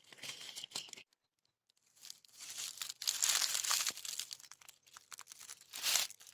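Dry crinkling and rustling as material is handled: a short burst, a pause, then a longer stretch from about two seconds in, loudest near the end.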